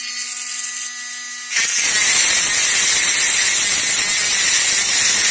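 Drill Master rotary tool running with a high, steady motor whine, then from about a second and a half in its abrasive cutoff wheel grinding into a screw with a loud, steady hiss. The cutting goes slowly: the screw is only partly cut through.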